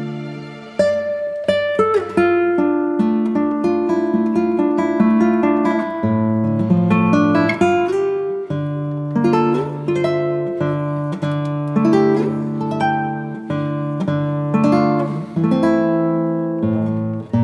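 Background music of an acoustic guitar picking a melody of plucked notes.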